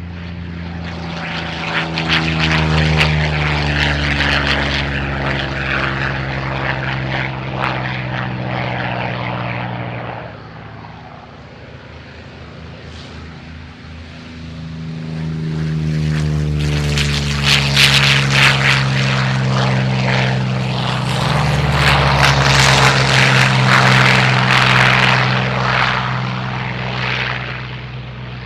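Propeller-driven aircraft engine flying past twice. Each pass swells and then fades, and the engine note drops as the plane goes by. The second pass is the louder one.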